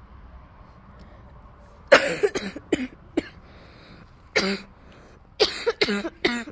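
A person with a cold coughing repeatedly, in short bouts starting about two seconds in.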